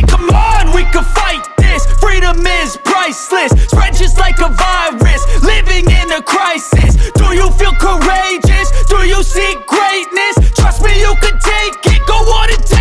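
Hip-hop backing track with heavy bass and a steady beat; the rapping voice may carry on over it.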